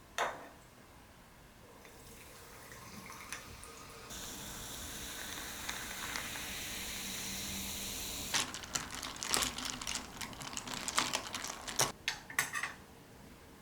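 Kitchen tap running with a steady rush of water for a few seconds, then cut off, followed by a string of clinks and knocks as dishes are handled at the sink.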